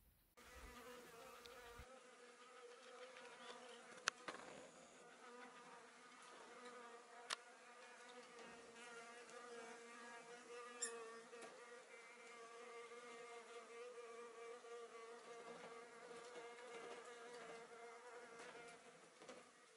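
Near silence with a faint, steady buzzing hum, broken by a few sharp clicks about four, seven and eleven seconds in.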